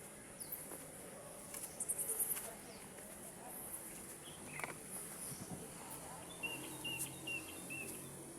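Outdoor countryside ambience: a steady high-pitched insect buzz, with scattered bird chirps and calls over it, a cluster of high chirps about two seconds in and short repeated chirps near the end.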